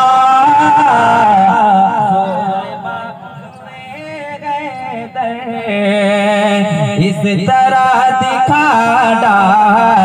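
A man's voice singing a manqabat (devotional Urdu poem) into a microphone, drawing out long, wavering, ornamented notes. The voice falls away for a couple of seconds about two seconds in, then returns at full strength.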